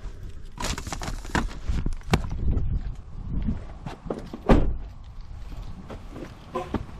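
Irregular footsteps and knocks, with handling noise on the microphone; the loudest knock comes about four and a half seconds in.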